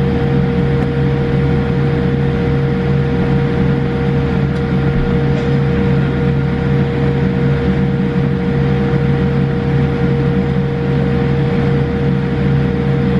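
Cabin noise inside a Boeing 787-8 taxiing after landing: the Rolls-Royce Trent 1000 engines at idle and the cabin air system make a steady rumble with several constant hums layered over it.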